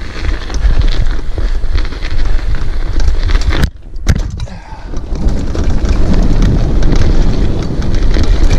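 Mountain bike ridden fast down a dirt run: loud wind buffeting on the microphone over tyre noise and the clatter of the bike on rough ground. The noise drops away briefly a little before halfway.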